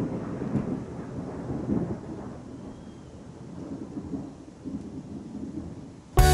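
A low, uneven rumbling noise with no clear pitch, like a rumble of thunder. Near the end, guitar music cuts in abruptly.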